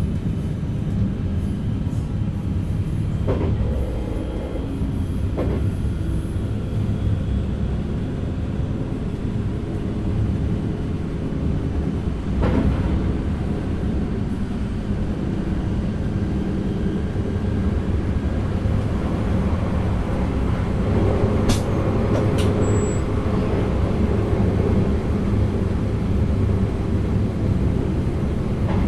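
NS DDZ double-deck electric train running along the line, heard from inside the driver's cab: a steady low rumble of the train underway. A few sharp clicks and knocks come through it, and a brief high beep sounds about two-thirds of the way in.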